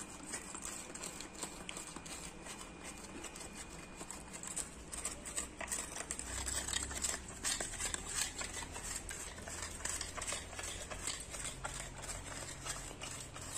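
Rottweiler puppy licking ice cream out of a small cup: rapid, irregular wet lapping clicks, the cup shifting against the tiled floor now and then.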